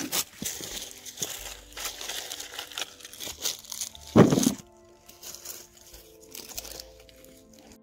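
Crinkling, crunching handling noise with one loud thump about four seconds in, over soft background music with held notes.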